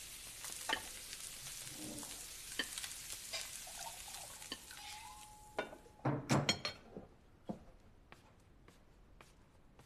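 Food sizzling in a frying pan, a steady hiss that stops about five and a half seconds in, followed by a quick clatter of tongs and plates and then a few light clicks.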